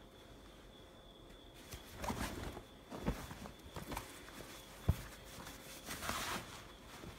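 Cotton shorts being handled and turned over, with soft fabric rustles and a few knocks against the table. The first couple of seconds are quiet; the sharpest knock comes about two-thirds of the way through, and a brief hissier rustle follows it.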